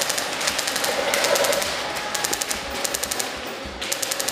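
Airsoft electric guns firing several short full-auto bursts, each a rapid string of sharp clicks.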